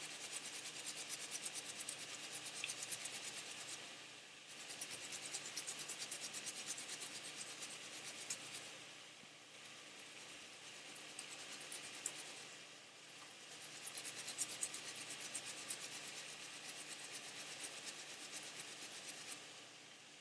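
Food being grated on a hand grater: quick, even rasping strokes, several a second, in runs broken by short pauses.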